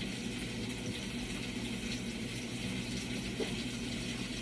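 Chicken cooking in the background: a steady, faint sizzle.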